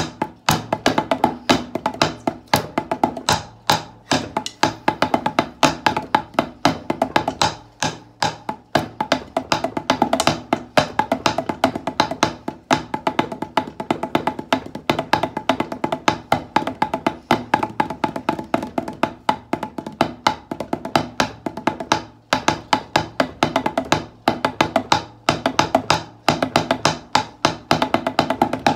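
Wooden drumsticks played on a rubber-faced ping pong paddle: fast, rhythmic drum patterns of sharp taps, with a few brief breaks.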